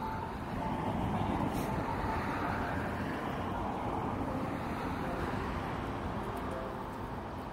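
Steady rushing outdoor noise, with faint music underneath.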